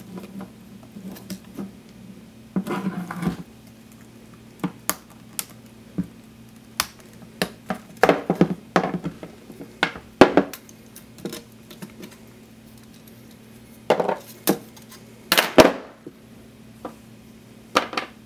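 Hard plastic enclosure parts and a hard drive being pulled apart, handled and set down on a desk: scattered clicks, knocks and clatters in short clusters, the loudest about fifteen seconds in.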